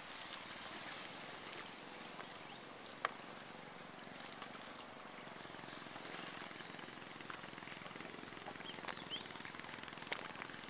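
Steady rush of shallow river water, with a few sharp knocks (the loudest about three seconds in) and a couple of short high rising chirps about nine seconds in.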